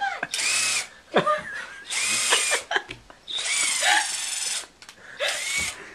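A cordless power drill is triggered in four short bursts, its motor whine rising and falling in pitch with each squeeze.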